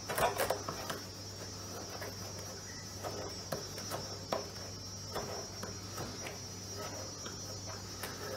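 Stanley knife scraping along the jigsaw-cut edge of a plastic barrel in short, faint strokes, trimming off the burrs, over a steady high-pitched whine.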